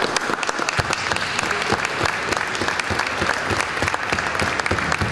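Audience applauding: many hands clapping in a dense, irregular patter at a steady level.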